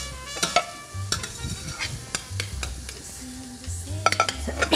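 Metal spoon stirring peppers and onions frying in oil in a stainless steel saucepan, with irregular clicks and scrapes against the pot over a light sizzle.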